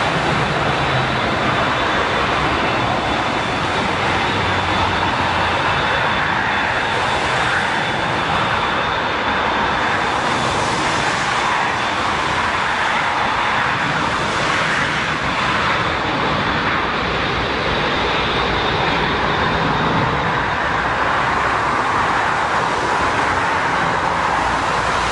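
Jet airliner engines heard as a steady rushing noise with no clear change in pitch.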